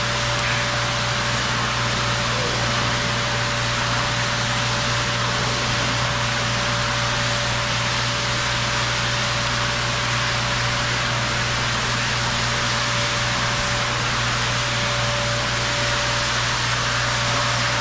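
Steady rushing of a creek's flowing water, even throughout, with a faint steady hum tone running through it.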